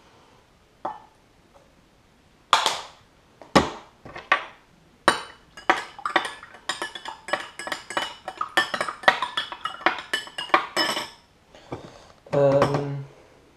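Metal spoon stirring milk in a drinking glass, clinking quickly and repeatedly against the glass for about six seconds. Before that come a few separate sharp clicks and knocks from the squeeze bottle and its snap cap being handled.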